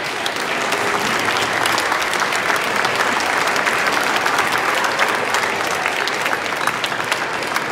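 Audience applause: many people clapping together, swelling over the first couple of seconds.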